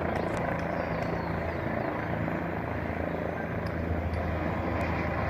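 Helicopter running on its pad just before take-off: a steady rotor and engine drone with a low hum underneath.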